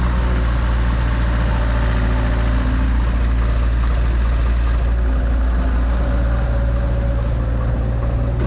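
Heavy diesel engine of earth-moving machinery running steadily, a deep even drone with no change in speed.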